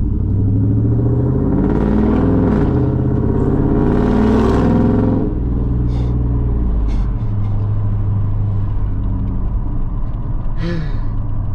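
A 5.3-litre V8 running through a catless exhaust with long-tube headers and a Magnaflow Bullet muffler. It is revved up and down a couple of times in the first five seconds, then idles steadily.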